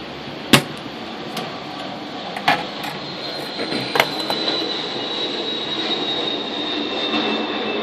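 Spring-loaded desoldering pump firing with a sharp snap about half a second in, the loudest sound, followed by two lighter knocks as the circuit board is handled, over a steady hiss with a faint high whine.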